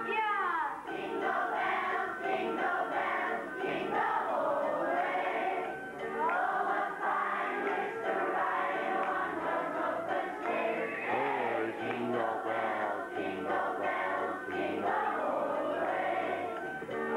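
A group of children singing a song together as a choir.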